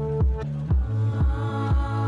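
Electronic background music with a steady kick-drum beat, about two beats a second, over held synth chords.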